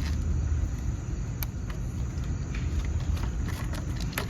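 A steady low engine-like rumble, with a few faint clicks of the plastic battery cover being screwed shut.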